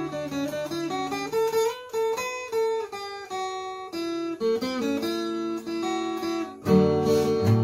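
Acoustic guitar with a capo played fingerstyle: a picked melody line over bass notes, the bass thinning out in the middle and fuller, louder chords coming back near the end.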